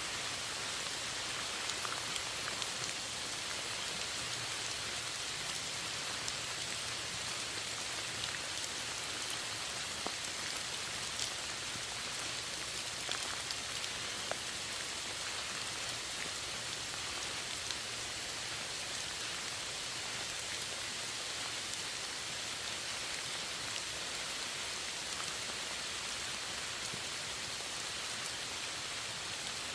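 Steady rainfall, an even hiss with scattered small drops pattering on a surface.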